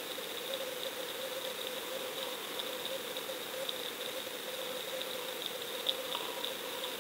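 Steady, muffled motor hum with a faint high whine over it and a few light ticks.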